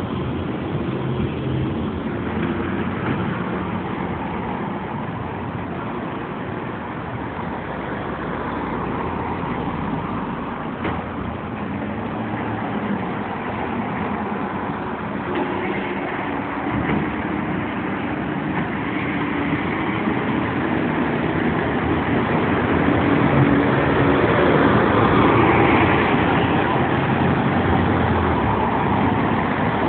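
City street traffic: cars driving past one after another over a steady engine rumble, growing louder in the second half.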